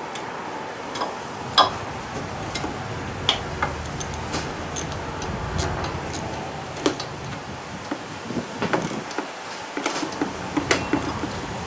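Irregular metallic clicks and taps of a wrench working on the 10 mm bolts that hold the carburetor to the intake manifold of a GY6 scooter engine.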